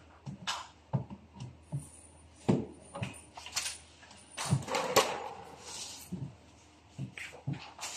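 Wooden cabinet door panel being handled and fitted against a particleboard shoe cabinet: a run of irregular knocks, taps and clatters, the loudest about two and a half and five seconds in.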